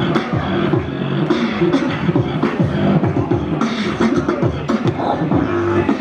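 Loud music with a steady beat and beatbox-style vocal percussion.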